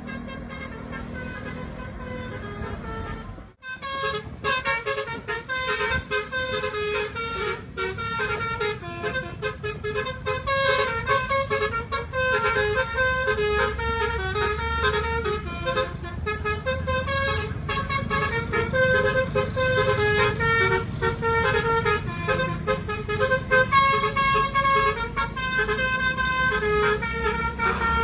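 Instrumental music with a steady beat and a low bass line; it drops out abruptly about three and a half seconds in, then comes back with busy repeated melodic notes.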